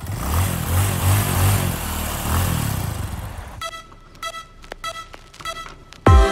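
A motor scooter engine running under a broad hiss of wind noise, fading out after about three and a half seconds. Faint ticks and thin tones follow, and music with heavy bass hits comes in near the end.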